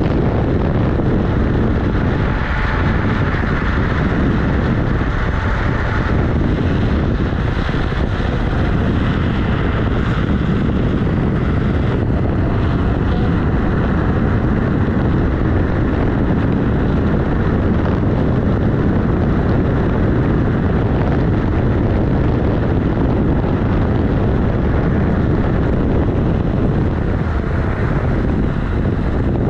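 Steady wind rushing over the microphone and tyre rumble on asphalt from a Kugoo G-Booster electric scooter riding along a road.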